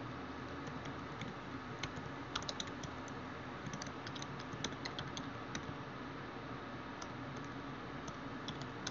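Light typing on a computer keyboard: a sparse, irregular run of faint key clicks over a low steady hiss.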